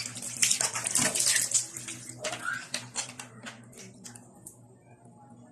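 Water splashing in irregular bursts, loudest for the first three seconds and then dying away.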